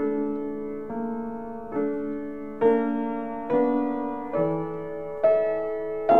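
Solo piano improvisation: slow chords in the middle register, struck about once a second, each left to ring and fade before the next.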